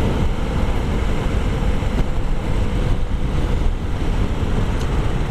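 Wind rushing over the microphone while riding a Honda CRF300L, with the bike's single-cylinder engine running steadily underneath.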